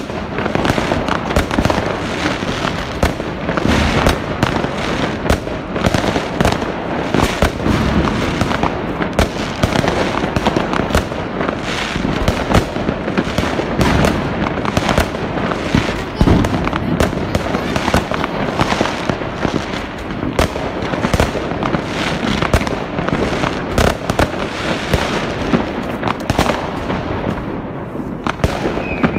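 Fireworks and firecrackers going off in many places at once: a dense, unbroken barrage of bangs and crackles with no let-up.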